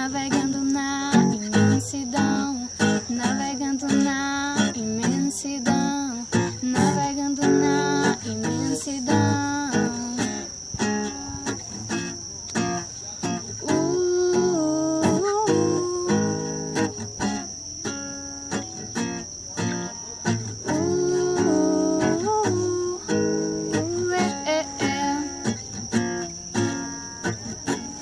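Acoustic guitar music carrying a melody with no words sung, over a steady high-pitched whine that runs throughout.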